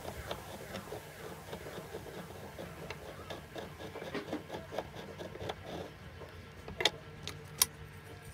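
Pencil scratching a line around the rim of a wooden disc as the disc is turned by hand, with small irregular taps and clicks. Two sharper clicks come near the end.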